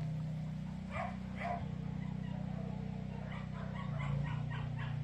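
Dog barking: two barks about a second in, then a quick run of short barks near the end, over a steady low hum.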